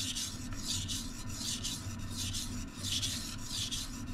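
Kitchen knife blade stroked back and forth on a wet whetstone: rhythmic scraping of steel on stone, about two strokes a second.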